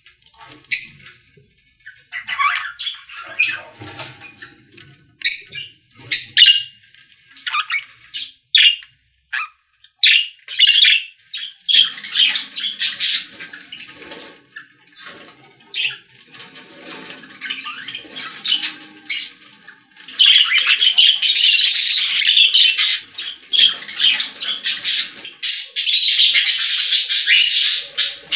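Baby birds calling in a bird house: separate short, sharp chirps at first, coming faster, then about two-thirds of the way through a loud, near-continuous harsh chorus, the insistent calling of nestlings begging for food.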